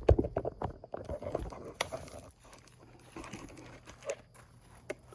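Potted cacti being set down: a quick cluster of knocks and scrapes in the first second and a half, then scattered lighter clicks and a couple of sharp taps.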